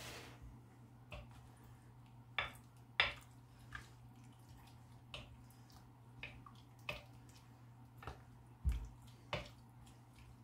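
Wooden spoon stirring a wet shrimp cocktail mixture in a glass bowl: scattered soft clinks against the glass and wet slops, irregular and spaced out, over a faint steady hum.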